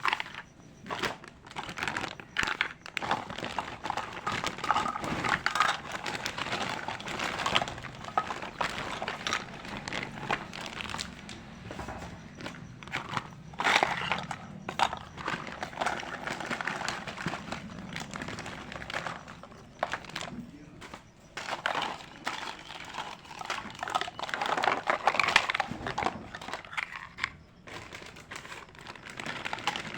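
Plastic packaging of a toy kitchen set crinkling and rustling as it is handled and unwrapped, with irregular clicks and taps.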